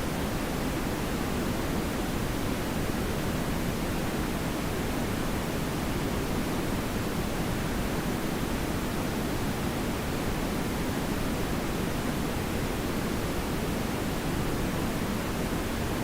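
TV static: a steady, even hiss of noise with no breaks or changes, fuller in the low range than plain white noise.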